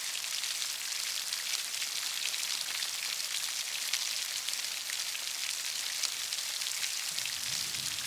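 Heavy rain falling steadily in a dense, even hiss of drops. A faint low rumble of thunder starts near the end.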